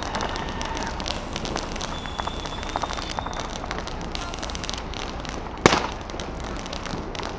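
Fireworks and firecrackers crackling and popping in a steady scatter of small cracks, with one loud sharp bang about five and a half seconds in. A faint high whistle sounds briefly near the middle.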